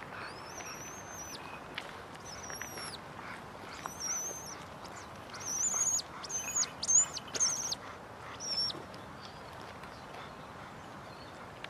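Harris's hawk calling: a series of high, thin cries. The first three are drawn out, about a second each, and fall away at the end. A quicker run of short, wavering cries follows around the middle and is the loudest part.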